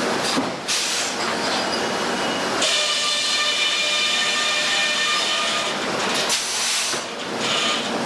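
A sawmill head rig running with its large circular saw, making a loud, steady mechanical noise. A set of steady high ringing tones joins in about a third of the way through and drops out near the end.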